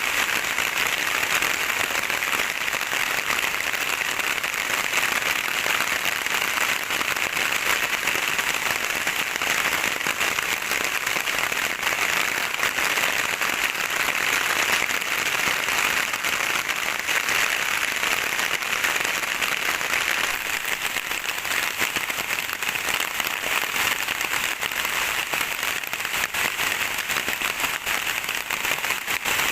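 Steady rain, a dense even pattering of drops with no break or change.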